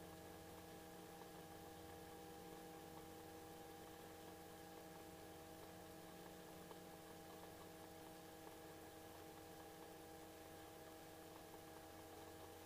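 Near silence: a faint, steady hum of several fixed pitches that does not change. It is most likely the Robinson R22's engine and rotor noise coming faintly through the cockpit intercom feed between transmissions.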